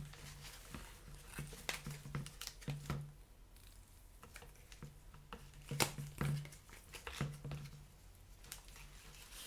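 Vacuum cleaner parts and packaging being handled: scattered light clicks and short bouts of crinkling.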